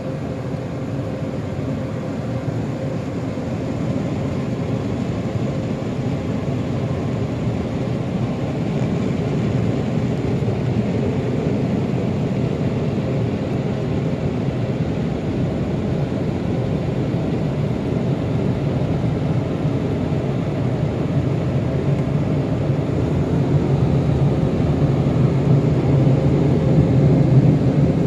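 Steady low rumble of a car's engine and road noise heard from inside the cabin, growing gradually louder toward the end.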